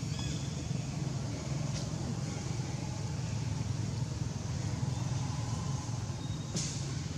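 Steady low rumble of outdoor background noise, with a single sharp click near the end.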